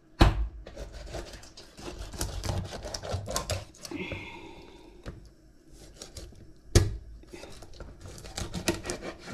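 Meat cleaver chopping a whole fish into pieces on a cutting board: two hard chops, one about a quarter-second in and one near seven seconds in, with crunching and crackling between them as the blade works through scales and bone.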